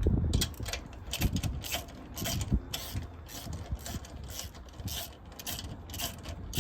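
Hand ratchet wrench clicking on a wheel's lug nuts, a steady run of short clicks about two a second.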